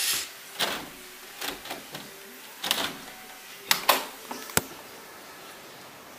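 Curtain fabric swishing and rustling several times as it is pushed aside, then the handle of a glass door rattling and its latch clicking sharply about four and a half seconds in as the door is opened.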